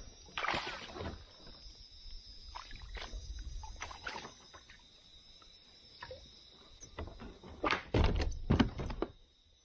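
An Australian bass being landed at the side of a plastic kayak: scattered knocks and splashes, with a cluster of loud splashes and thuds against the hull from about three-quarters of the way through, as the fish is brought to the boat. A steady high insect drone runs behind.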